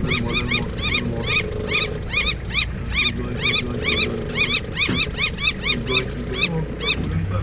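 Birds calling noisily: a steady stream of short calls that rise and fall in pitch, several birds overlapping, about three to four calls a second.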